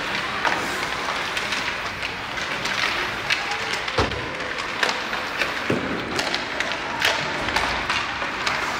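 Ice hockey play in a rink: scattered sharp clacks and knocks of sticks, puck and skates over a steady noisy rink hum. The two loudest knocks are about four seconds in and again near six seconds, each with a low boom like a puck or body hitting the boards.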